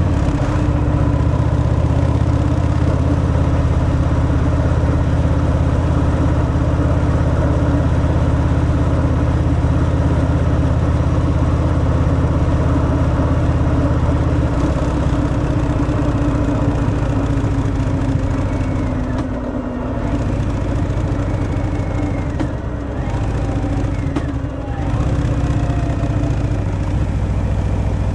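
Stock Harley-Davidson Fat Boy V-twin running on the road through its stock exhaust, a steady loud engine note. In the second half the note drops briefly three times and then climbs again.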